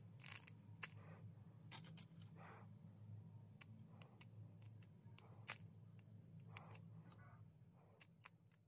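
Faint, irregular crackles and ticks of fine steel wool burning and sparking where bare wire ends touch it, over a steady low hum; overall near silence.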